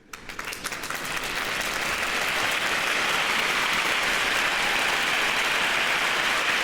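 Applause from many people clapping, fading in over the first couple of seconds and then holding steady.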